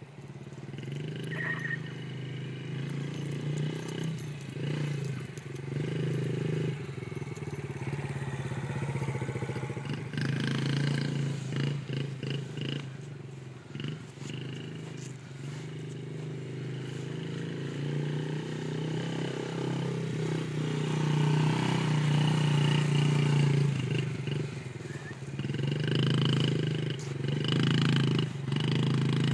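Yamaha TT-R50 mini dirt bike's small single-cylinder four-stroke engine running as the bike is ridden around at low speed. The engine note stays fairly even and swells and fades with distance, growing louder in the last third.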